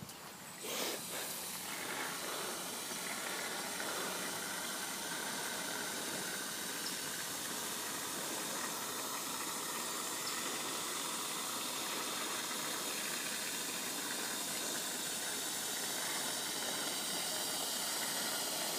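Can of expanding spray foam dispensing through its straw nozzle: a steady hiss, starting about a second in, as a bead of foam is laid around the rim of a septic tank riser.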